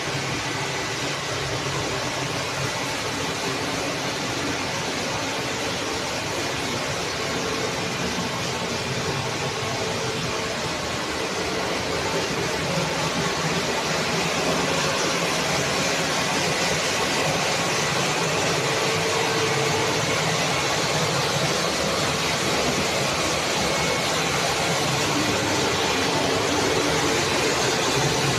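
Steady machinery noise: a continuous roar with a faint low hum, growing slightly louder about halfway through.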